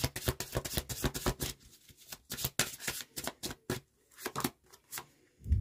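A deck of reading cards being shuffled by hand: a quick run of crisp card snaps over the first second and a half, then scattered single clicks and slaps as the cards are handled.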